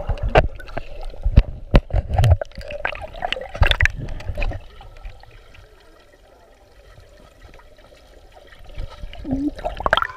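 Water splashing and sloshing close to the microphone, with irregular knocks over the first few seconds, then quieter trickling.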